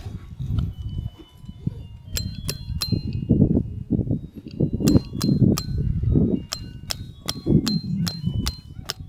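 Repeated sharp metallic clanks, a few a second from about two seconds in, each with a brief ring, typical of a hammer driving metal tent stakes into the ground while the camp is being pitched.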